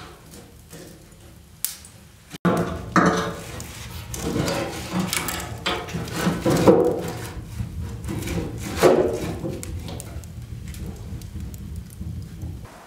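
Split firewood logs being loaded into a wood-burning stove's firebox, knocking and scraping against the stove and the embers. It starts quietly with a few faint clicks, and the louder handling comes in suddenly about two and a half seconds in.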